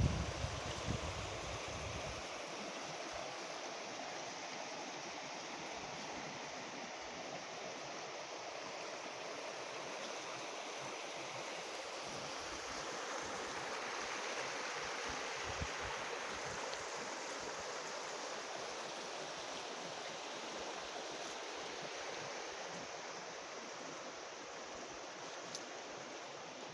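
Water running steadily, with a gentle swell in level about halfway through. A low rumble of wind on the microphone is heard for the first couple of seconds.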